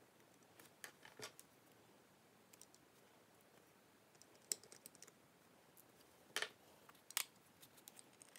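Irregular light metallic clicks and taps as steel tweezers and fingers work on an Eterna Super Kontiki watch's automatic movement and steel case, the sharpest a few about halfway and near the end.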